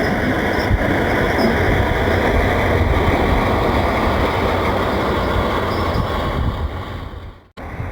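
Steady, loud rumbling street noise in a snowstorm: wind buffeting the microphone mixed with vehicle traffic. It cuts out abruptly near the end.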